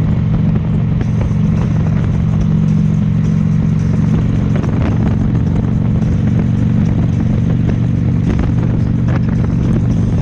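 Harley-Davidson V-twin motorcycle engine running at a steady cruising speed, an even drone with no change in pitch.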